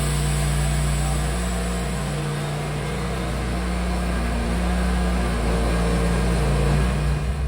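Timberking 1400 portable band sawmill running: a steady engine drone whose pitch shifts slightly a few times, over a constant high hiss.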